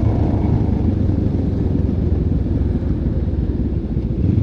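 Benelli TRK 702 X motorcycle's parallel-twin engine running steadily while riding at low speed, a continuous low rumble.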